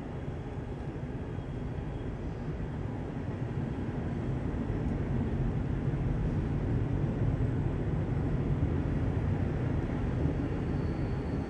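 Low, steady rumbling drone with no clear pitch, swelling louder from about four seconds in.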